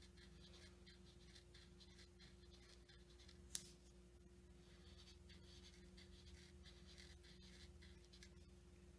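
Faint scratching of a marker tip drawing short, repeated strokes on paper. A single sharp click about three and a half seconds in.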